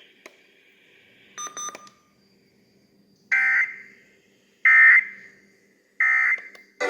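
NOAA Weather Radio end-of-message data bursts through a radio speaker: three identical short, harsh digital screeches about 1.3 s apart, signalling the end of the warning broadcast. A brief electronic beep comes before them, about a second and a half in.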